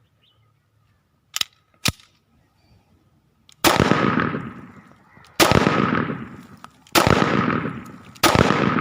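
Newly built 30 bore (7.62×25mm Tokarev) pistol being test-fired in single shots: two sharp clicks, then four loud shots about a second and a half apart, each trailing off in a long echo.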